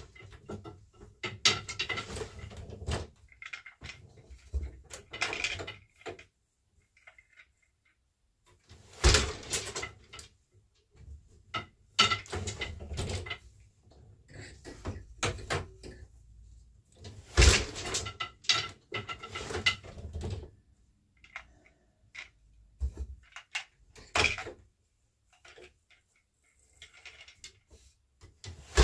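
Weaving on an 8-shaft loom: wooden boat shuttles passed through the shed and the beater pulled against the cloth. Several sharp wooden knocks a few seconds apart, with lighter clatter of the loom's parts and the shuttle between them.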